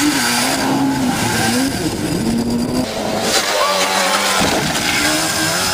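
Car engine revving hard as it is driven off-road, its pitch wavering up and down and changing sharply a few times.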